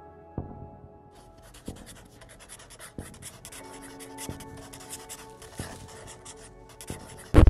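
Ballpoint pen scratching on notebook paper as someone writes, starting about a second in. Under it, soft background music with held notes and a slow, even beat about every second and a quarter.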